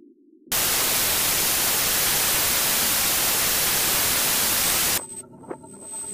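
A loud burst of even white-noise static that starts abruptly about half a second in and cuts off suddenly about five seconds in. Quiet electronic ambient music with several held synthesizer tones follows.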